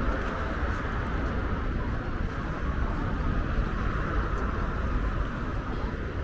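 Steady road traffic noise with a strong low rumble and no distinct single events.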